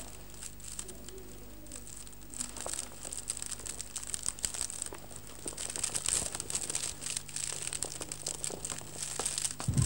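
Dry rice straw crackling and rustling as it is lit and catches fire. The small irregular crackles are sparse at first and come thicker after a couple of seconds.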